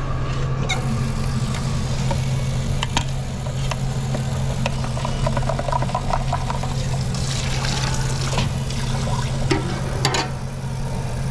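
Electric shake mixer motor running with a steady low hum while a milkshake is mixed, with a few light clinks of utensils or cup.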